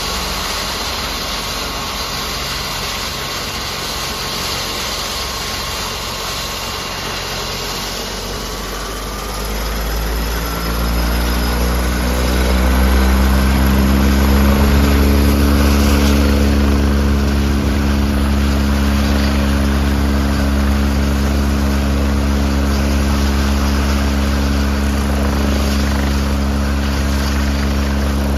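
Leonardo AW109SP helicopter running on the ground, its twin turbine engines whining over the turning rotor. About ten seconds in the engines spool up: the whine rises in pitch and a strong low rotor beat comes in louder, then holds steady as the rotor is brought up to speed for takeoff.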